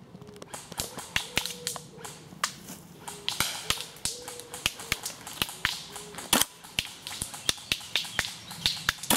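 Airsoft guns firing in a skirmish: irregular sharp snaps of single shots, a few each second, with one louder crack about six and a half seconds in.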